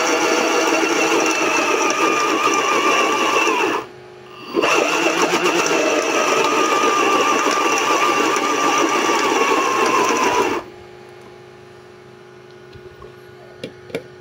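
The 12 V DC motor of a homemade blender, converted from a mains blender, running at speed to blend ginger in water. It gives a steady high whir in two runs, about four seconds and then about six after a brief stop, and its pitch sags slightly just before each stop. About ten seconds in it drops away to a faint steady hum with a couple of small clicks.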